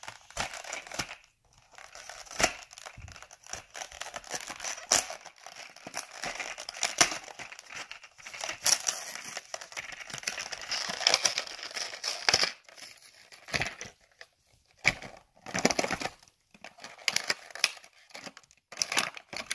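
A nose-trimmer retail pack with a cardboard backing card being opened by hand: crinkling, crackling and tearing of the packaging, with sharp clicks, in irregular bursts with short pauses.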